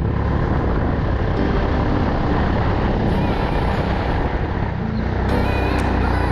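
Go-kart engine running steadily at speed, loud and continuous.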